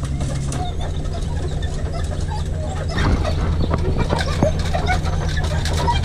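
Truck carrying an aluminum dog box driving along a grassy field lane: a steady low engine and road hum with frequent light rattles and knocks from the box.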